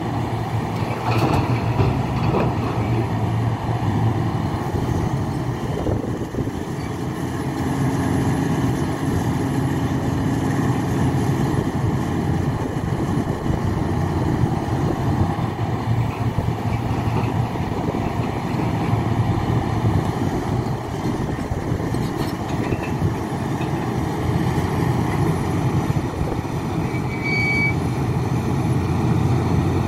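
Hidromek 410LC excavator's diesel engine running steadily under working load, its note swelling and easing as the hydraulics work, with a couple of sharp knocks.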